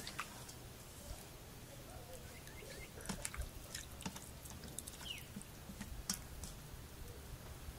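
Faint wet squelching and small clicks of hands kneading raw chicken legs in a runny red marinade in a stainless steel bowl.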